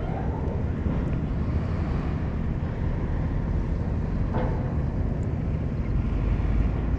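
Wind buffeting the action camera's microphone, a steady low rumble, with a brief faint click about four and a half seconds in.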